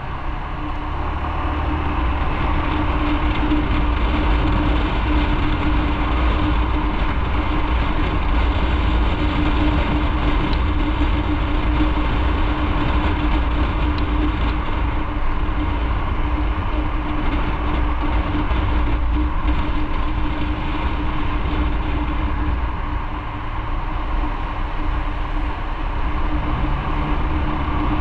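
Motorcycle riding at a steady speed: one steady engine drone under loud, continuous low rumble. It eases slightly a few seconds before the end.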